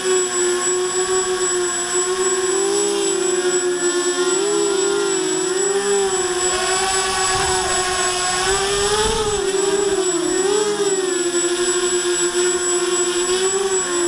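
Walkera Runner 250 racing quadcopter's four brushless motors and propellers whining steadily, the pitch wavering up and down as the motors speed up and slow down to hold the craft. Wind rumbles on the microphone for a few seconds in the middle.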